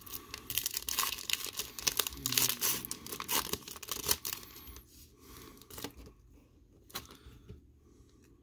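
Foil wrapper of a trading-card pack being torn open and crinkled by hand, a dense crackle for the first four seconds or so, then only a few faint rustles and clicks.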